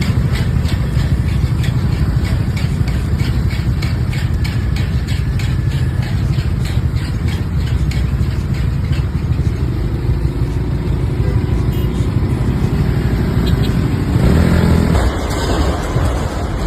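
A moving vehicle's steady low rumble with rapid, evenly spaced clicking over it; the sound shifts about two seconds before the end.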